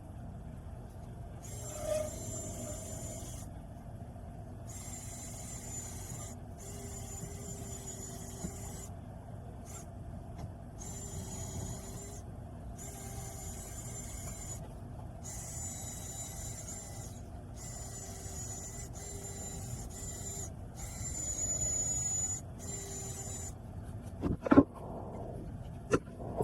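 A power tool starting and stopping in repeated bursts of one to three seconds, with a high whine and a rasping scrape on metal. Two sharp metal clanks come near the end.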